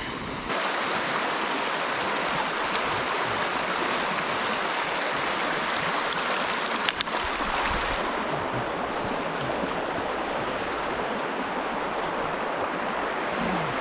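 Steady rush of shallow creek water running over a riffle, close to the microphone, with a couple of brief clicks about seven seconds in.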